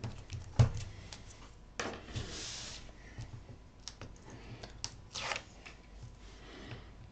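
Card stock handled and pressed flat by hand: faint light taps and paper rustles, with a sharper knock about half a second in and brief rustling swishes around two and five seconds in.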